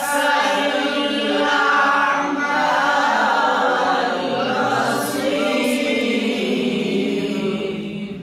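A man reciting the Quran in maqam Hijaz, holding a long ornamented melismatic phrase whose pitch bends through turns, then fading out near the end.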